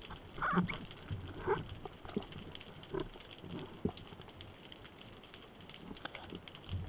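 Underwater handling noise as a speared fish is held and worked on a speargun's shaft: a series of short, muffled knocks and scrapes, thickest in the first few seconds, over a faint steady hiss.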